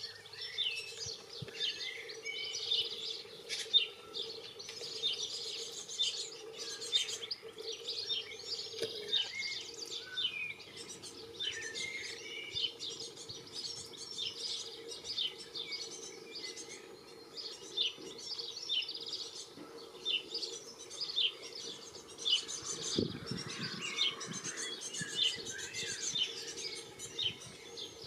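Small garden birds chirping and twittering continuously in quick, overlapping calls. A steady low hum runs underneath, and there is a brief low thud about 23 seconds in.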